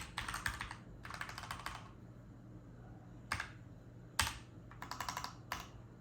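Typing on a Keychron K10 full-size mechanical keyboard: rapid runs of key clicks broken by pauses and single keystrokes, as the keys are tried out over a fresh Bluetooth connection.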